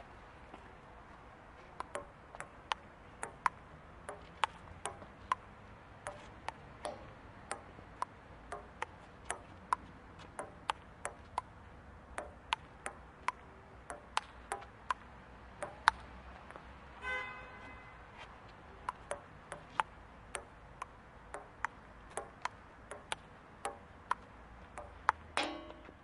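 Table tennis rally: a celluloid ball knocked back and forth, with sharp clicks of ball on paddle and table at about two a second. A short pitched sound cuts in about 17 seconds in, and a louder, longer one comes just before the end.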